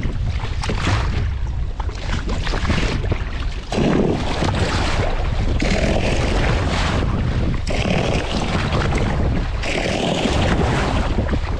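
Wind buffeting the microphone in uneven gusts over waves slapping against a small boat's hull.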